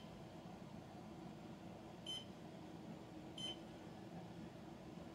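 EDUPLINK 3D LED wall clock's beeper giving two short, high beeps, about two seconds in and again about a second later, over a faint steady hum.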